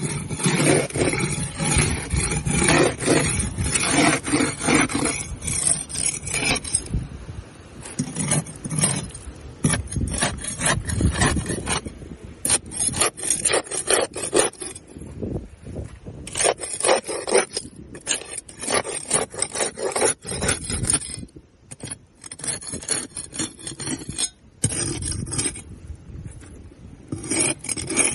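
Barnacles being scraped off a boat hull: rapid, irregular scraping strokes that crunch through the hard shells. The strokes run densely for the first several seconds, then come in bursts with short pauses.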